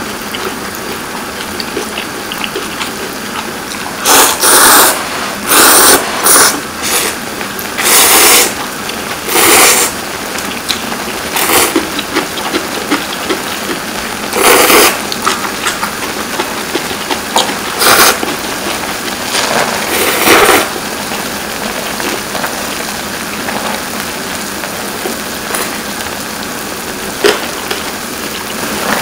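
Loud slurping of Shin Ramyun instant noodles, about ten separate slurps in the first two-thirds, with quieter eating noises between them.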